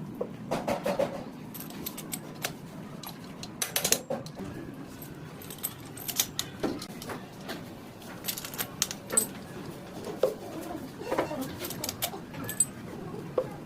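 Metal tools and engine parts clinking and knocking against each other in an irregular string of sharp clicks, as in hands-on engine rebuilding work.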